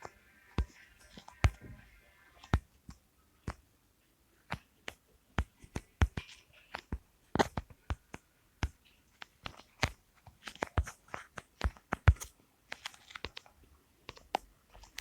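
A run of sharp, irregular clicks and crunchy snaps, a few each second, some louder than others.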